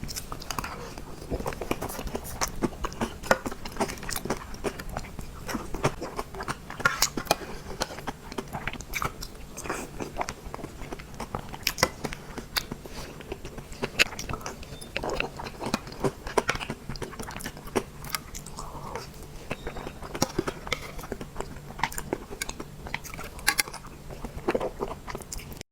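Close-miked mouth sounds of a person eating a soft chocolate dessert: steady chewing with many small wet clicks and smacks, over a faint steady hum.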